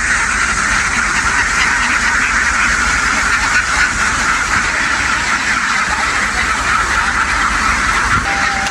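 A huge flock of domestic ducks quacking all at once, blending into one steady, loud din, over a low rumble.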